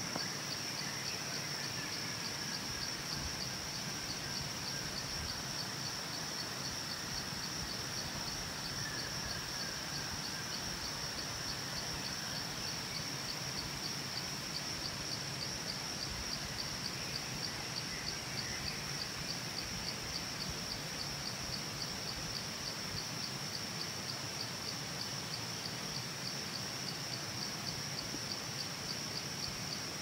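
Insects trilling in one steady, high-pitched, rapidly pulsing drone, with a few faint bird chirps now and then.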